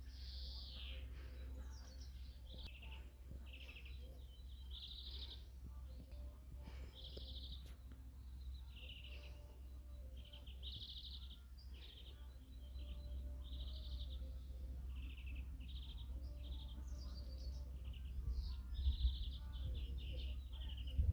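Small songbirds singing in spring, one short phrase after another, over a steady low rumble.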